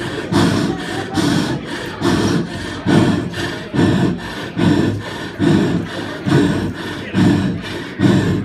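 A man panting heavily straight into a close microphone, about two loud, rasping breaths a second, acting out being winded and out of breath.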